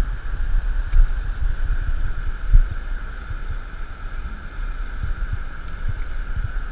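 Wind buffeting the camera microphone in uneven low rumbles, over a steady rush of running river water.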